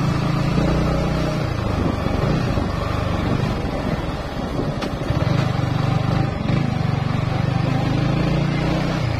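Motorcycle engine running while being ridden, a steady low engine note that eases off from about a second and a half in and picks up again around five seconds.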